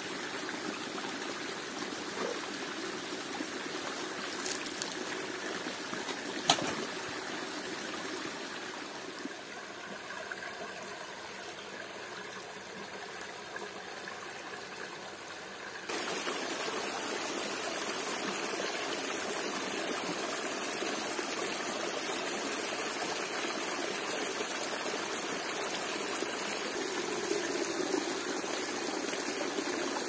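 Steady rush of running water from a forest stream and waterfall. There is a sharp click about six and a half seconds in, and the water gets suddenly louder about halfway through.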